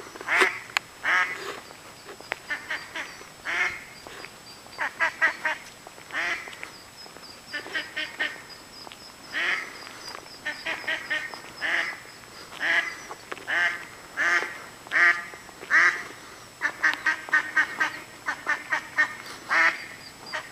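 Mother duck quacking over and over as she leads her ducklings, in single quacks and quick runs of four or five.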